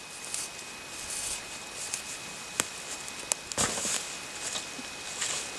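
Rustling and scuffing of handling or movement, with two sharp clicks about two and a half and three seconds in, then a louder rustling crunch just after.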